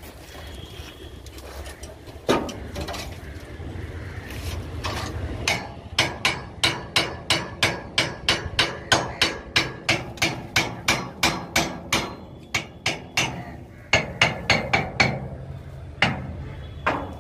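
Hammer blows on the steel of a tractor trolley under construction: a fast, even run of about three strikes a second lasting several seconds, with scattered single blows before and after.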